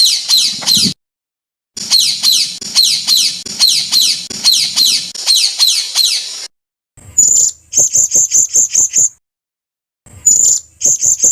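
Recorded songbird song spliced into a masteran track: phrases of rapid, high, downward-sweeping notes about four a second, then, after a pause, a short high whistle leading into a fast train of sharp chips, repeated near the end. The phrases are separated by dead-silent gaps where the recording is cut.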